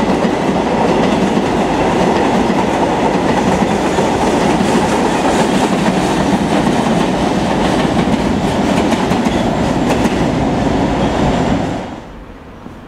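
Empty freight flat wagons rolling past close by, a steady loud rush of wheel-on-rail noise. It drops away abruptly near the end.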